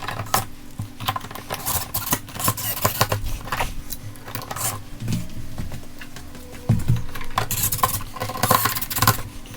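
Light switches being pushed back into a wall box and screwed down: irregular small clicks, knocks and scrapes of metal and plastic, busier near the end, over a faint steady hum.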